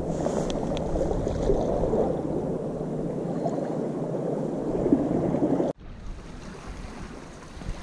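Steady wash of sea waves against a rock breakwater, mixed with wind on the microphone. It drops off abruptly about three-quarters of the way through and carries on more quietly.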